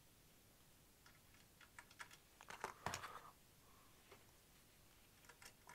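Faint, irregular metallic clicks and taps of an Allen key on small screws as they are snugged up: a cluster in the middle, loudest at its end, and a few more near the end.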